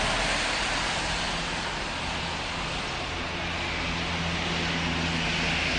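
Steady street traffic noise: a constant hiss with a low hum underneath, dipping slightly about halfway through.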